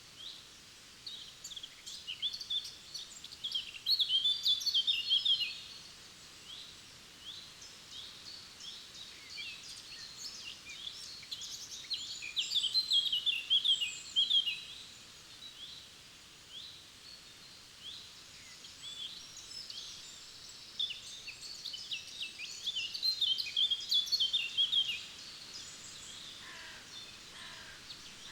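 Forest songbirds singing: one bird repeats a loud, rapid song phrase about every nine seconds, three times, while other birds chirp now and then between the phrases.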